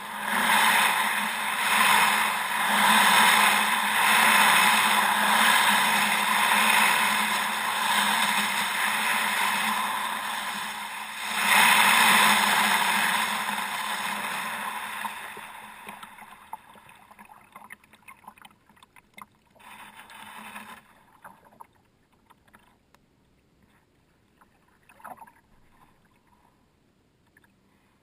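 A kayak moving in icy lake water: a loud rushing noise that dies away after about fifteen seconds. After that come only faint splashes and small knocks.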